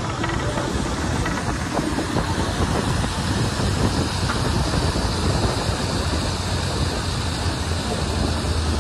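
Steady running noise of a moving vehicle: an even low rumble under a constant hiss.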